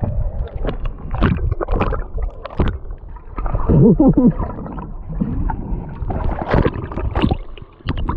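Water sloshing and gurgling around a person moving through it, with irregular knocks and low rumble of wind and handling on the microphone. A brief wavering, pitched sound about four seconds in.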